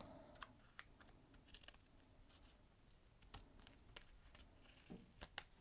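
Faint, scattered snips and clicks of small scissors trimming the overhanging ends of patterned paper strips off a card, about half a dozen short clicks in all.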